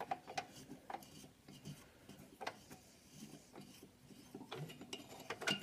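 Faint scattered metal clicks and rubbing as a cylinder stud is unscrewed from a Vespa PX 150 engine, with a few sharper clicks near the end.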